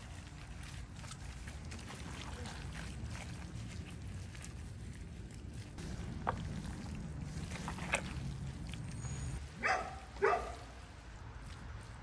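Gloved hands pulling apart wet smoked pork in a foil pan, with soft handling noise over a low rumble and a few small clicks. Near the end come two short, loud, pitched calls, the second falling in pitch.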